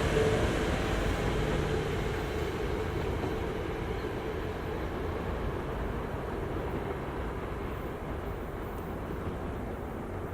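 SEPTA electric commuter train passing and moving away, its steady rail rumble slowly fading.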